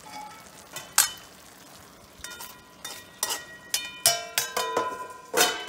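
Steel spoon and steel lid clinking against a steel kadhai as the pan is covered: a series of sharp metal clinks and clatters, each ringing on briefly.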